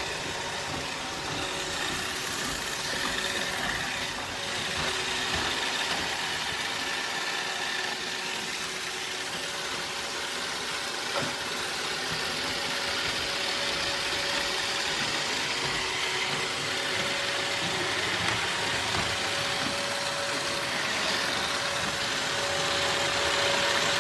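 iRobot Roomba robot vacuum running, a steady whir of its suction motor and brushes with a faint whine.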